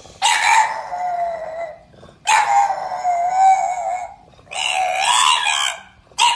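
French bulldog puppy howling: three long howls that waver in pitch, with a fourth starting near the end.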